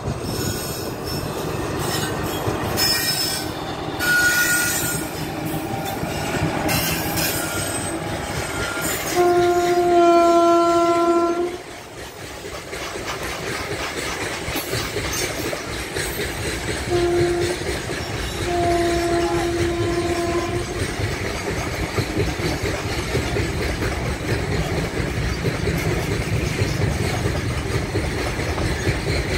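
Freight train of open coal wagons hauled by twin WAG-7 electric locomotives rolling past with a steady rumble and clatter of wheels on the rails. A loud two-second horn blast comes about nine seconds in, then a short toot and a longer blast about eight seconds later.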